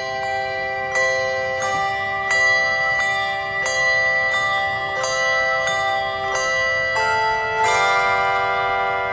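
Instrumental postlude music of ringing bell-like notes: a slow melody struck about every half second or so, each note ringing on into the next, with fuller chords near the end.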